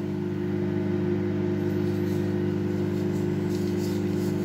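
Microwave oven running with a steady electrical hum, with faint rustling near the end.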